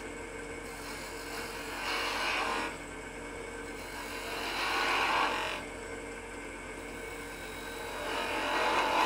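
Wood lathe running with a steady hum while a turning tool cuts the spinning branch blank. The cut comes in three passes, each about a second long: about two seconds in, about five seconds in, and again near the end.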